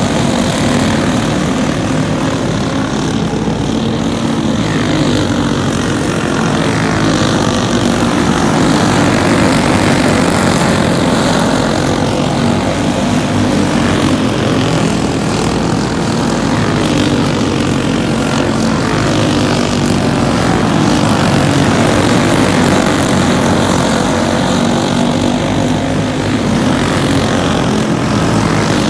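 Several racing go-kart engines running together at speed: a steady, loud buzz whose pitch keeps rising and falling as the karts pass and come on and off the throttle.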